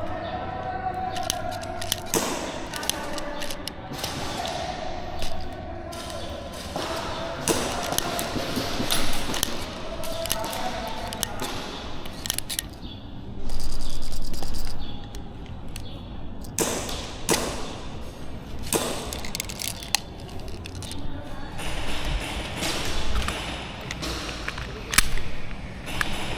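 Scattered sharp cracks of airsoft guns firing across the field, single shots at uneven intervals, under faint distant voices.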